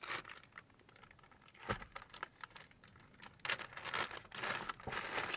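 Paper and plastic packaging rustling and crinkling, with light clicks and taps as small parts are handled. There is a sharper tap about a second and a half in and a busier patch of rustling near the end.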